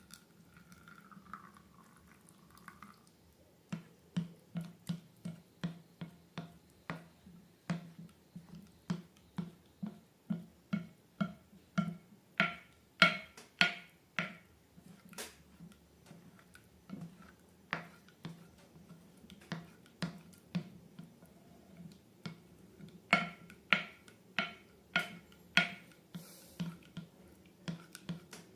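Slime being pressed and poked by hand, giving a long series of sharp popping clicks about two a second, loudest in two stretches near the middle and towards the end.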